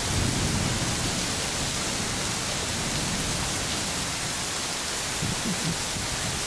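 Torrential rain: a steady, even hiss of a heavy downpour.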